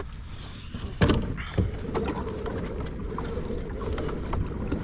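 Kayak moving on the water, with steady low water and hull noise and a single knock against the hull about a second in.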